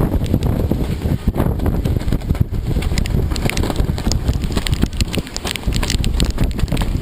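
Hurricane-force wind buffeting the microphone in uneven gusts, a heavy low rumble, with scattered sharp ticks and crackles growing more frequent from about three seconds in.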